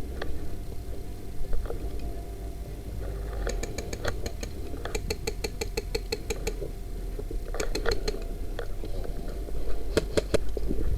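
Airsoft guns firing rapid runs of sharp clicking shots, about five or six a second for roughly three seconds in the middle, then two shorter groups near the end, over a steady low rumble.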